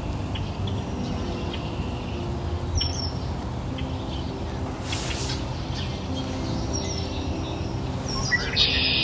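Background nature ambience: birds chirping now and then, a few short high chirps, over a steady noisy hiss, with soft low sustained tones underneath.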